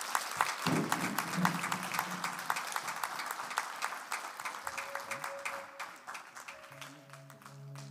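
Church congregation applauding, many hands clapping, the clapping thinning out near the end as music with held notes begins.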